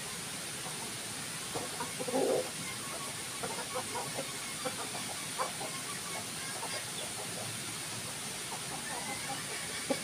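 Chickens clucking in short scattered notes while foraging, the loudest call about two seconds in, over a steady hiss.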